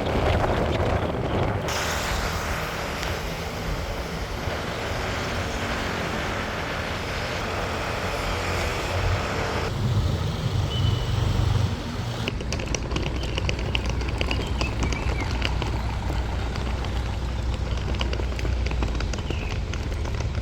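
Steady vehicle rumble and background noise, changing abruptly about 2, 10 and 12 seconds in as one stretch of ambience gives way to another.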